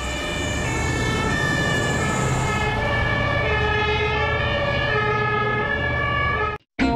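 Fire engine sirens sounding in the German two-tone pattern, stepping back and forth between two pitches, over the rumble of the trucks' engines as they drive out on an alarm. The sound cuts off abruptly near the end.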